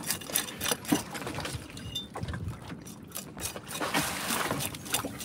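Knife blade scraping the scales off a dog snapper: a run of quick, irregular scrapes and clicks.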